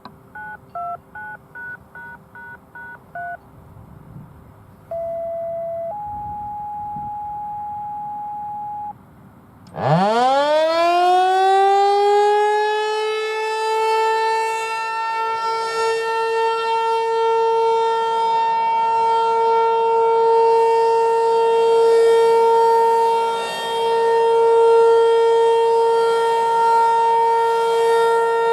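A quick string of about ten touch-tone (DTMF) beeps, then two steady beeps, the siren's activation tones. About ten seconds in, a Federal Signal 508-128 outdoor warning siren winds up from silence with a fast rising pitch and settles into its steady alert tone, its loudness wavering slightly.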